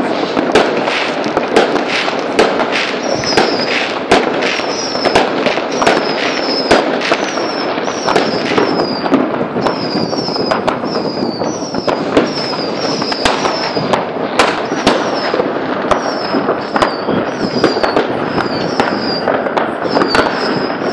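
New Year's Eve fireworks and firecrackers going off all around: a continuous crackle with frequent sharp bangs. From about three seconds in, a short, high, falling chirp repeats in quick pairs over it.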